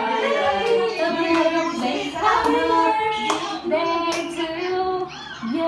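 A group of voices, children among them, singing a birthday song, with hand claps scattered through it.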